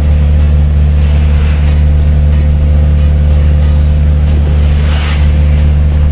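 A truck's engine running steadily, heard from inside its cab while driving. An oncoming bus swishes past about five seconds in.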